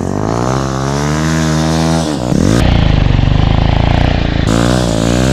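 Stunt motorcycle's engine revving hard while the rider lifts a one-handed wheelie on the throttle alone, without the clutch. The engine note climbs over the first couple of seconds, drops briefly, holds high, then dips and climbs again near the end.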